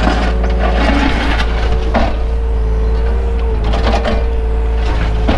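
Takeuchi excavator's engine and hydraulics running steadily, heard from inside the cab, with a constant low drone and a steady whine. Several clunks sound about every two seconds as the machine works.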